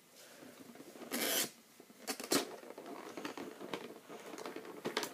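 Packaging of a Pokémon card tin being handled and unpacked: rustling and rubbing, with a louder scraping rush about a second in and a few sharp clicks.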